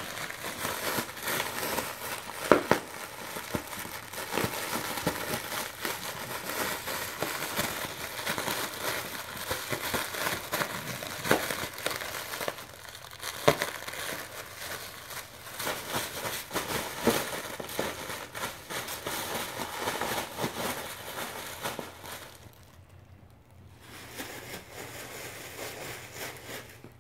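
Clear plastic bubble wrap crinkling and rustling as a small dog paws, digs and bites at it, with a few louder sharp cracks among the rustle. The sound falls much quieter for the last few seconds.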